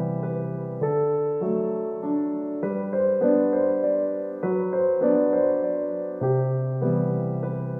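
Background piano music: sustained chords changing about once a second.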